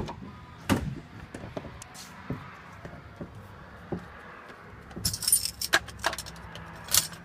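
Keys jangling on a key ring, with a dense run of jingling about five seconds in, among scattered clicks and knocks from inside a pickup truck's cab.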